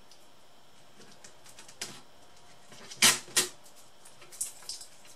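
Light plastic and metal clicks, then two sharp snaps about three seconds in, as a laptop's cooling fan and heatsink assembly is pried and torn loose from the motherboard.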